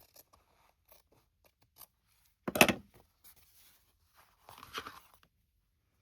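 Paper and glued fabric being handled on a worktable: a few faint clicks, then two short, louder rustling scrapes about two and a half and four and a half seconds in, the first the louder.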